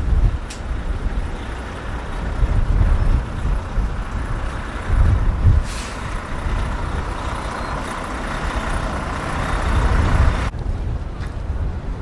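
Blizzard wind gusting hard against the microphone, over a steady hiss that swells and then cuts off sharply near the end.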